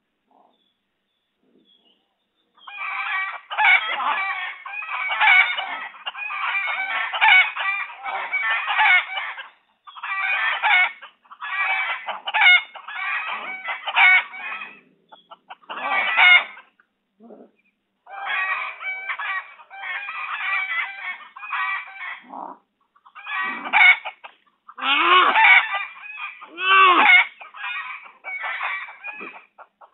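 Chickens clucking in loud, overlapping bursts of calls, with a rooster crowing among them. The calls start about two and a half seconds in, after a near-silent moment.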